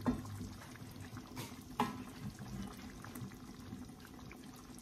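Wooden spatula stirring a thick, saucy pork menudo stew in a wide pan: wet sloshing of the sauce, with a few light knocks of the spatula against the pan, one right at the start and two more about a second and a half in. A faint steady hum runs underneath.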